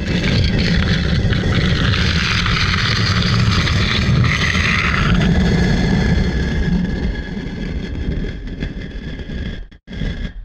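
Heavy stone block dragged and sliding on stone, a long continuous grinding scrape. It breaks off briefly near the end, then scrapes again.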